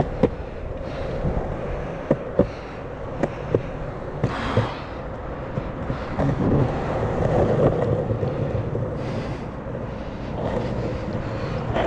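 Sector 9 skateboard wheels rolling on pavement with a steady rumble, clicking sharply several times in the first five seconds.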